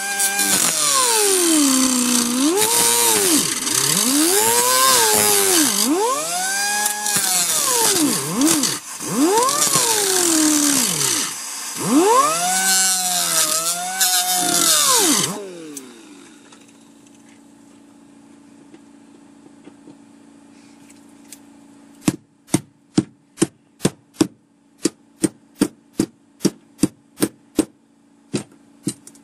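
Small hand grinder cutting a minivan's sheet-steel floor to lengthen a seat-bolt hole, its motor pitch rising and falling as it bites and eases off. It stops about fifteen seconds in. After a pause, a hammer strikes the floor in a quick run of blows, two or three a second, near the end.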